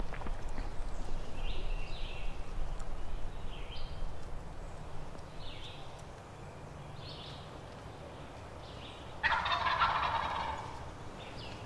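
Wild turkey gobbler gobbling once, loud and rattling, about nine seconds in. Short, fainter high-pitched calls repeat every second or two around it.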